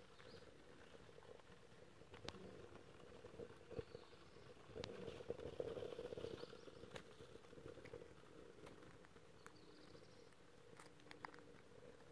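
Faint, scattered crackles and ticks of birch bark and small twigs burning in the fire base of a Kelly Kettle Trekker camp kettle, just after lighting.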